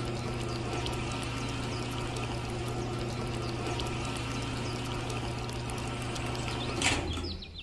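Miniature fuel dispenser running while its nozzle fills a toy tractor's filler pipe: a steady pouring hiss over a low hum, which stops about seven seconds in.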